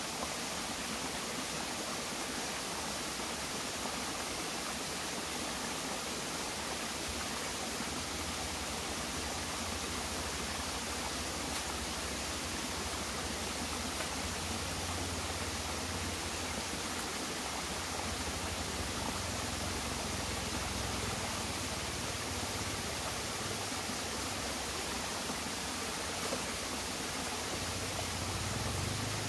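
Small, shallow forest stream running over rocks in little cascades: a steady, even rushing of water. A low rumble comes and goes through the middle and again near the end.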